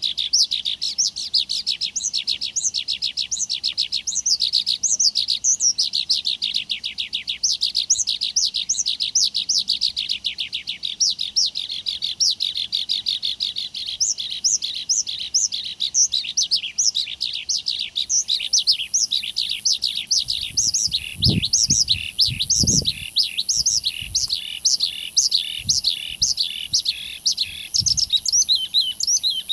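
Continuous birdsong: many small birds chirping rapidly and densely together. About two-thirds of the way in, a steady, very high tone joins in.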